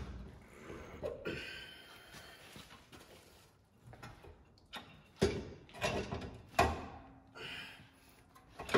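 Land Rover Defender 90 rear coil spring being worked into its seat by hand, knocking and scraping against the metal axle and chassis mounts. There are a few sharp clunks about five to seven seconds in and another near the end.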